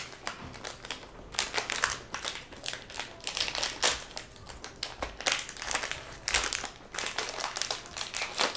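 Plastic blind-bag packet crinkling as it is torn open and handled by hand, in a dense run of irregular crackles.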